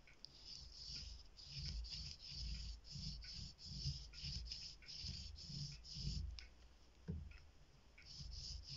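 Watercolour paintbrush swishing back and forth across drawing-block paper in soft, quick strokes, about two a second. The strokes pause near the end, and a single knock comes about seven seconds in.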